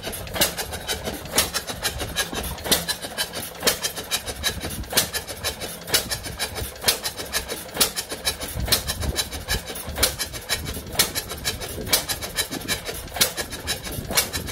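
1908 Madison 1 hp horizontal single-cylinder stationary engine running, with a sharp beat about once a second and lighter clicking and knocking from the engine between beats.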